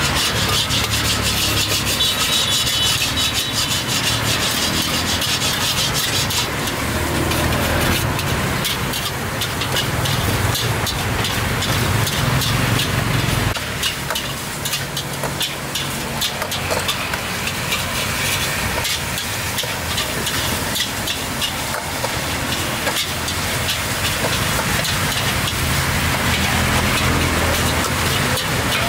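A metal ladle stirs and scrapes a pan of meat simmering in sauce, with rapid clicking scrapes and sizzling over a steady low rumble.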